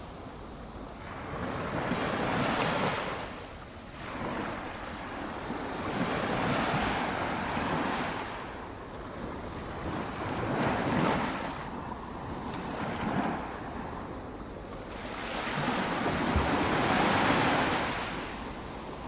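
Small waves on a calm sea breaking and washing up the beach: a gentle rush of surf that swells and fades every few seconds, with the largest swell near the end.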